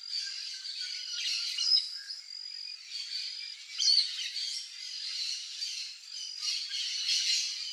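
Birds chirping and calling, with short sharp notes standing out about two and four seconds in, over a steady high-pitched drone.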